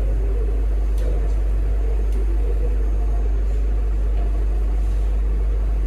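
Steady low hum of a hall's public-address system, with faint room noise over it.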